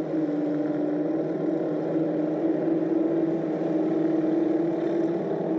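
A steady low droning hum made of several held tones, one of them wavering slightly in pitch partway through.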